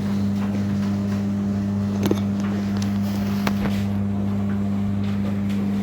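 Beko tumble dryer running: a steady motor and drum hum with a few light clicks.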